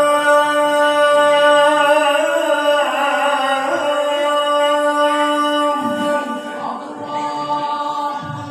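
Male qari reciting the Quran in the melodic tilawah style into a handheld microphone, amplified, holding one long ornamented phrase with wavering pitch that fades out near the end.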